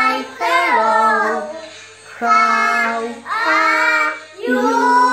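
Three small girls singing together at the top of their voices, in loud phrases of about a second each, several ending with a downward slide in pitch.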